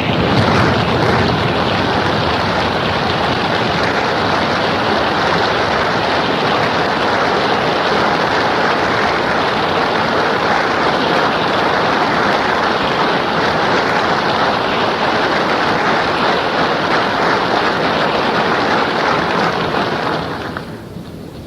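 Loud, sustained applause from a congress hall audience, heard through a crackly shortwave radio broadcast. It dies down near the end.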